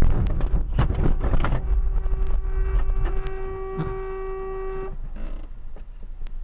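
A vehicle horn held in one long steady note. It is broken about a second in by loud rumbling and a few knocks, and stops about five seconds in.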